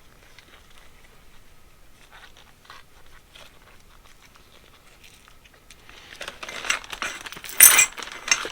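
Close crunching and scraping handling noises from work on a dirty carburetor part, faint at first and louder and denser from about six seconds in, with a sharp crinkly scrape near the end.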